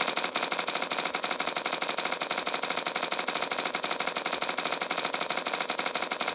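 Machine-gun fire sound effect: one continuous rapid burst of shots lasting about six seconds, stopping abruptly.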